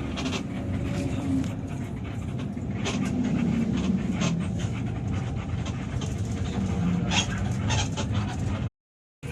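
Bus engine running with a steady, rough rumble and scattered clicks. It cuts out for about half a second near the end.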